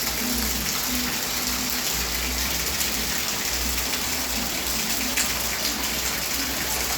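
Heavy rain pouring down, a steady rush of water.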